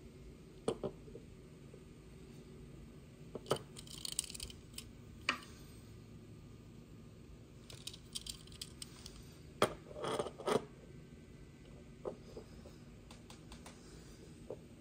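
Scattered clicks, taps and light scrapes of a die-cast toy car being handled and turned over on a wooden tabletop, with a few sharper knocks and brief runs of quick ticking.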